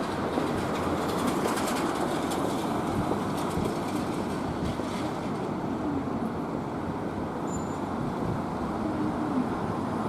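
A Randen (Keifuku Electric Railroad) tram running past over the rails, mixed with steady street traffic noise, with faint clicking from the wheels in the first few seconds.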